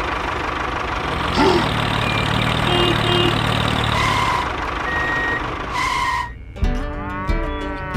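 Tractor engine running steadily, with a few short beeps over it. The engine cuts off about six seconds in and music begins.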